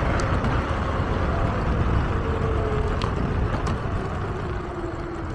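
Electric skateboard riding: low wheel rumble and wind noise, with the motor's whine falling slowly in pitch from about two seconds in as the board slows. A few sharp ticks come through.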